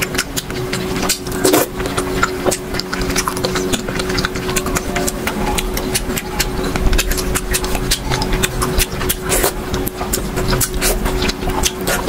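Close-up eating sounds: wet mouth smacks and squelchy chewing of soft, milk-soaked rasmalai, with light clicks of a metal spoon, many short sharp clicks scattered throughout. Under them runs a steady electrical-sounding hum.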